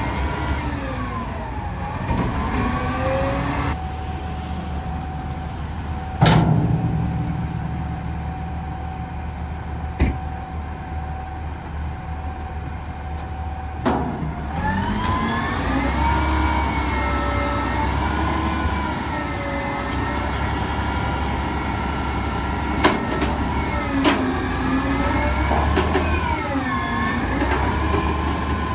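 McNeilus garbage truck's diesel engine running, its revs rising and falling through the second half, with a steady whine for several seconds and a few sharp metallic clunks.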